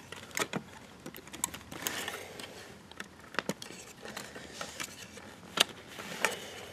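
Scattered clicks and light knocks of a 3.5-inch WD Red hard drive and the NAS's sheet-metal drive bracket being handled as the drive is seated in its bay, with a soft rustle about two seconds in.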